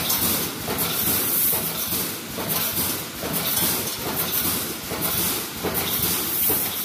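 Pneumatic wire-mesh welding machine running through its welding cycle: a regular clatter of strokes, about two a second, each with a burst of air hiss.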